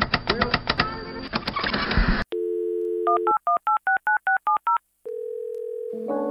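Intro sound effects: about two seconds of rapid mechanical clicking, then a steady telephone dial tone and about ten touch-tone (DTMF) digits dialled in quick succession. A single steady tone follows, and a sustained chord-like chime sounds near the end.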